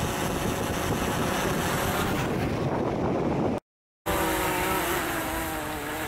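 DJI Phantom quadcopter's propellers whining steadily in flight, with a sudden dropout of about half a second midway, after which the whine returns and its pitch sags slightly near the end.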